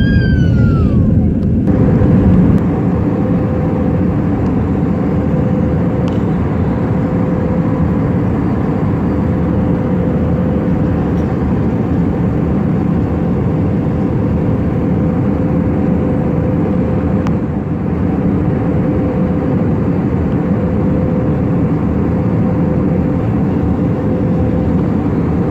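Airbus A320 cabin noise from a window seat: the steady drone of the jet engines and rushing air, with a steady hum on top. The noise shifts abruptly about two seconds in, where the climb-out gives way to cruise.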